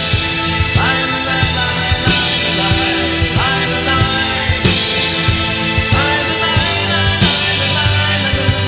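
Band music driven by a drum kit, keeping a steady beat with recurring cymbal washes over sustained instruments.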